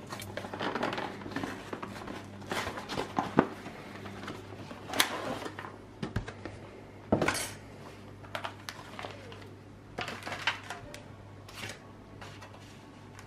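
Ready-meal packaging being handled: a cardboard sleeve slid off, and an aluminium foil tray and vacuum-sealed plastic pouch rustling, crinkling and clattering lightly on the table, in scattered sharp clicks. A steady low hum runs underneath.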